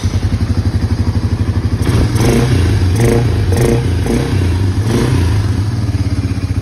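Honda 300 ATV engine, just started, idling with a steady beat, then blipped on the throttle several times between about two and five seconds in before settling back to idle.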